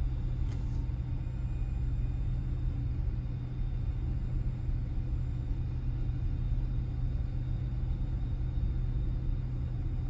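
Steady low rumble and hum of a car idling, heard from inside the cabin.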